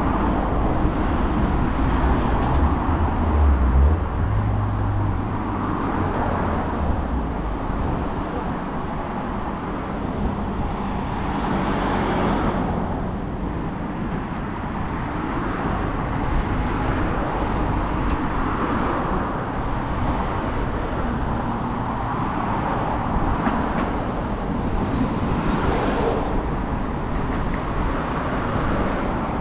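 Steady road traffic, with vehicles passing one after another. A heavy vehicle rumbles past in the first few seconds.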